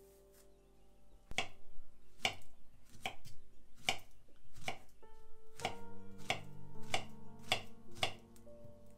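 Small kitchen knife slicing a peeled banana on a bamboo cutting board: about ten crisp taps of the blade reaching the board, a little under one a second, starting about a second in.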